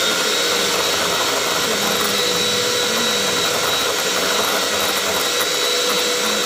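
Electric hand mixer running at a steady speed, its twin beaters whipping cream in a glass bowl, with an even, high motor whine.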